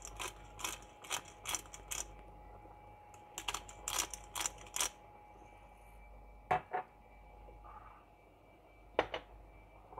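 Pepper mill being twisted by hand to grind black pepper, a run of crisp grinding clicks at about four a second in two spells. Later, two single knocks.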